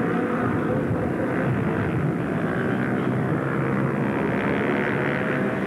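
Three-wheeler ATV (ATC) engines running hard under racing, a steady droning buzz with more than one engine pitch overlapping.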